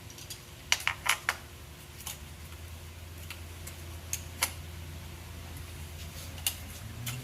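Irregular sharp clicks and taps of ignition coil packs and their plastic connectors being handled and fitted, about ten in all, clustered in the first second and a half, over a low steady hum.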